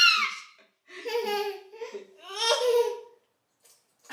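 High-pitched laughter from a woman and a baby, in two short bouts.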